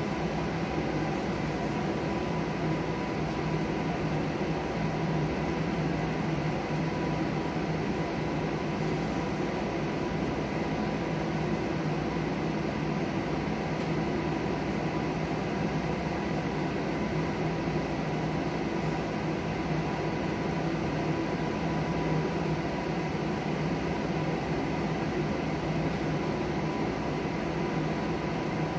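Steady hum of ventilation or air conditioning: a constant noise with faint steady tones, unchanging throughout.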